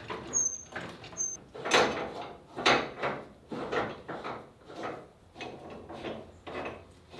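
Hydraulic floor jack being pumped by its long handle to lift the car, a stroke about once a second, with short high squeaks on the first strokes.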